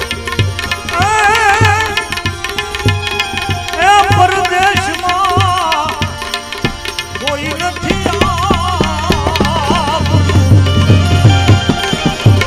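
Gujarati folk bhajan music: a melody line with strong wavering vibrato over a rhythmic tabla beat that grows busier near the end.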